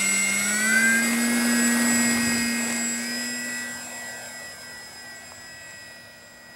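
Electric motor and propeller of a Parkzone F4U-1A Corsair RC plane whining in flight. The pitch rises in the first second or so, then holds steady while the sound fades away.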